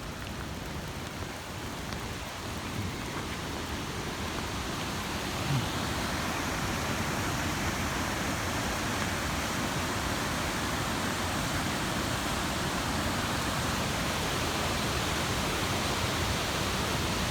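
Rain and small hail falling steadily, an even dense hiss that grows a little louder about five or six seconds in, with one brief low knock at about that point.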